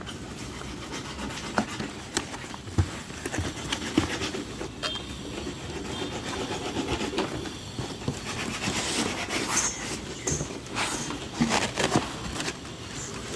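Rustling and rubbing with scattered knocks and clicks as the unboxed packaging and inverter accessories are handled, busier in the second half.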